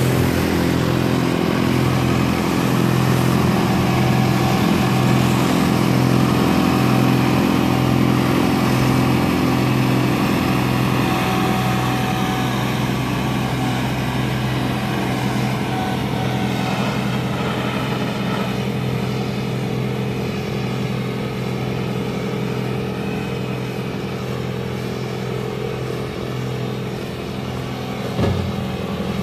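Massey Ferguson 1736 compact tractor's diesel engine running steadily under load, driving a front-mounted MF1410 two-stage snow blower as it throws snow. The engine is a little louder in the first half, and there is a short knock near the end.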